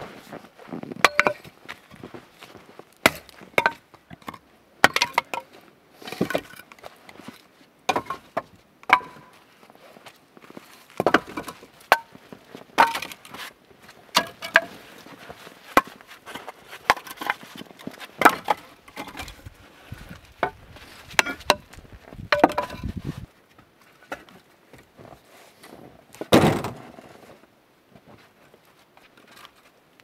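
Pieces of split firewood knocking and clattering against each other as they are handled and dropped. It is a string of sharp, hollow wooden knocks every second or two, with a longer clatter about 26 seconds in.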